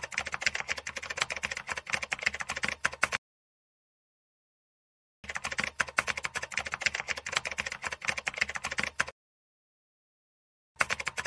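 Typing sound effect, rapid keyboard key clicks. It comes in runs: one of about three seconds, a pause of about two seconds, a run of about four seconds, and another run starting near the end.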